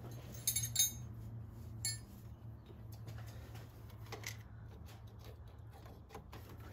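A wrench clinking against metal as it is fitted to the clutch cable adjuster's jam nut, with a few sharp clinks in the first two seconds and fainter ticks after, as the jam nut is tightened again. A faint steady low hum runs underneath.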